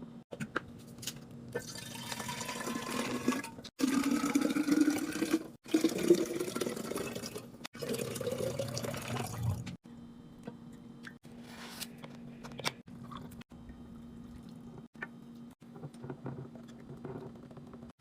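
Liquid being poured into a container in a few separate pours, the pitch rising as it fills. Then a few light clicks and taps.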